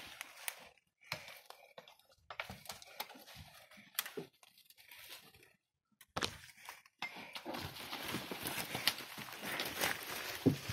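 Scattered rustling and crunching in dry leaves and brush, broken by short near-silent gaps, growing busier and more continuous after about six seconds.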